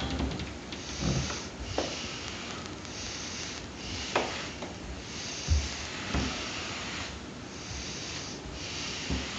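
Grout float spreading pre-mixed grout across wall tile: repeated scraping swishes, with a few soft knocks.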